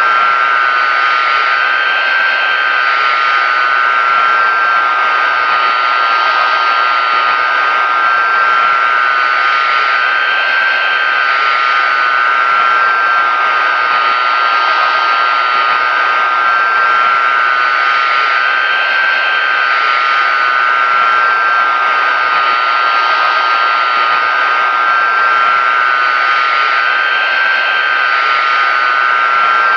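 Pratt & Whitney JT9D-7 turbofan engines of a Boeing 747-200 running at a constant setting: a steady, loud rushing drone with a high, unwavering whine of several close tones on top. Nothing in it rises, falls or stops.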